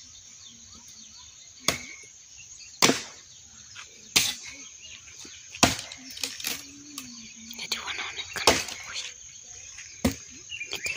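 Axe chopping and splitting firewood branches: about six sharp blows at uneven intervals, with smaller knocks and splintering between them. A steady high chirring of insects runs underneath.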